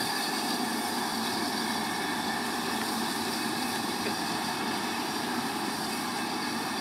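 LMS 4-6-2 steam locomotive No. 6233 Duchess of Sutherland standing still, with a steady hiss of escaping steam.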